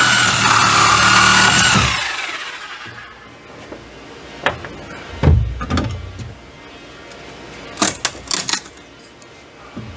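Corded power saw running with a steady whine, then winding down about two seconds in. A few knocks follow, then a quick series of sharp wood cracks around eight seconds as a nailed board is pulled off the wall studs.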